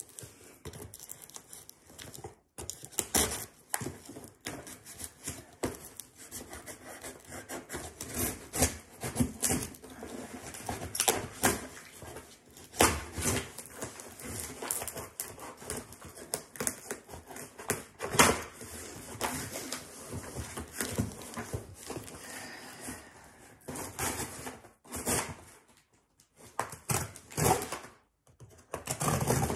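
A parcel being unpacked by hand: cardboard and tape tearing and packing material crackling and rustling in irregular sharp bursts, with a couple of brief pauses.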